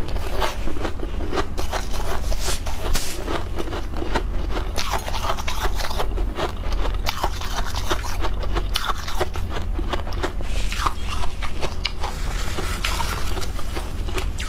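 Freezer frost crunching close to the microphone: a dense, irregular run of crisp crunches and crackles.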